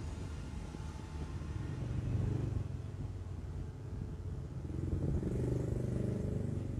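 Low rumble of passing motor vehicles, swelling about two seconds in and again, louder, near the end.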